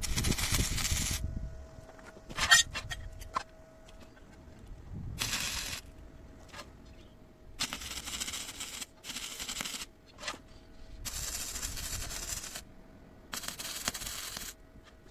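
Short stitch welds from a 100 V semi-automatic (MIG) welder: about six separate bursts of arc noise, each roughly a second long, with pauses between them.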